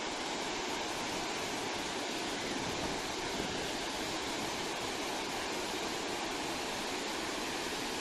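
Waterfall and whitewater rapids: a steady, unbroken rush of falling and churning water.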